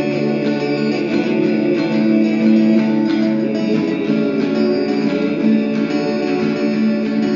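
Instrumental passage of an unplugged song, led by guitar with strummed and plucked chords, without singing.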